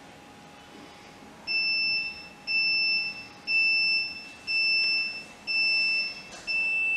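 Handheld peripheral nerve stimulator (nerve locator) beeping steadily about once a second, each beep a high electronic tone lasting most of a second, starting about a second and a half in. The beeps mark the stimulating current pulses, set at 1.5 mA, going out through the block needle.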